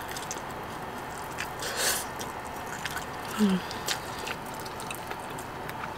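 A person biting into and chewing a sauced barbecue chicken drumstick, with small wet mouth clicks and a short noisy bite about two seconds in. A brief low "mm" hum comes a little past the middle.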